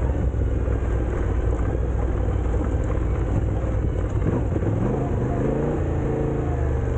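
Motorcycle engine running under way on a gravel road, with a low rumble of wind and ground noise; the engine note climbs in pitch over the last couple of seconds as the bike speeds up.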